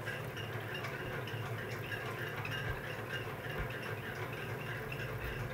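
Quiet room tone: a steady low hum with faint background noise and no distinct events.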